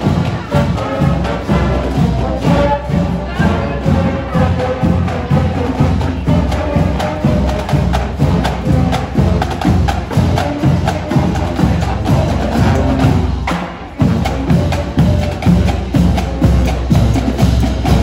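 Marching band playing as it parades past: a brass melody over a steady marching drum beat of about two strokes a second, the drumline with snare drums, bass drums and cymbals coming to the fore in the second half.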